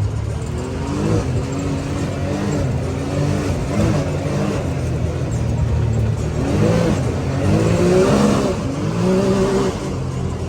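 Can-Am Maverick X3 side-by-side engine running and being revved, its pitch rising and falling again and again over a steady low hum.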